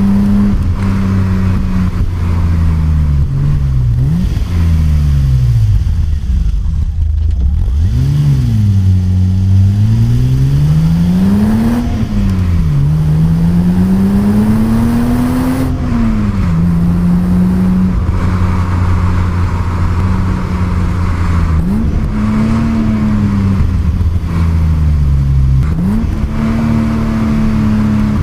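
Stock 1988 BMW 325i E30's 2.5-litre straight-six engine under driving load, its pitch holding steady for stretches, sinking as the revs fall and then jumping up sharply several times, with one longer climb in revs that drops away partway through.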